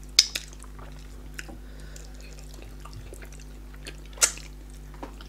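Wet mouth sounds of eating fufu and pepper soup by hand: sharp smacking clicks as soup is sucked from the fingers, a quick pair near the start and a louder one about four seconds in, with small ticks between, over a low steady hum.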